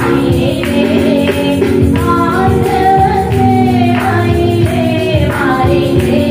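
A woman singing a Christian worship song into a microphone, held notes over steady musical accompaniment.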